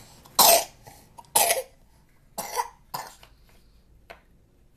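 A person coughing twice, two loud coughs about a second apart. A softer cough-like sound and a few light clicks follow.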